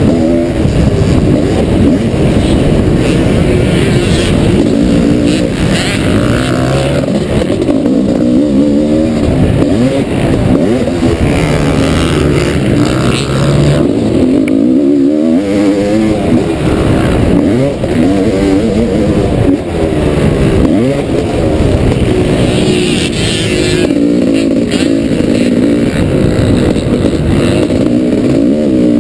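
1989 Honda CR500's open-class two-stroke single-cylinder engine, heard on board while it is ridden hard around a motocross track. It revs up and drops back again and again through the gears and corners, with no let-up.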